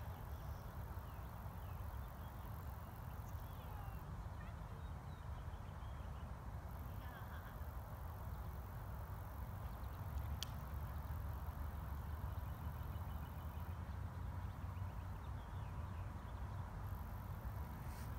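Outdoor ambience dominated by a steady low rumble of wind on the microphone. Faint short high chirps come now and then, and a single sharp click sounds about ten seconds in.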